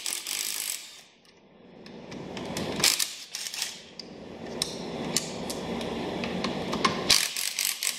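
Cordless drill-driver with a hex bit running in several short bursts, backing out 5 mm Allen-head bolts from a power seat's metal frame, with sharp metallic clicks between and during the runs.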